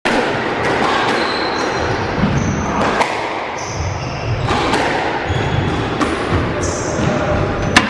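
Squash rally: the ball cracking off the rackets and the court walls every half second to a second, with shoes squeaking on the wooden floor in between. The loudest hit comes near the end.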